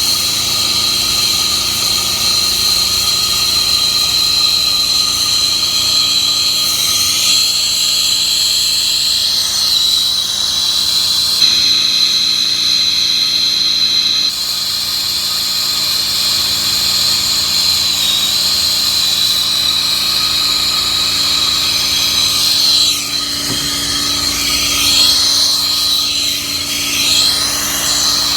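A turbo torch burning steadily while heating large copper pipe for soldering: a continuous hissing rush of flame with a steady high whistle that wavers slightly, plus a few brief gliding tones.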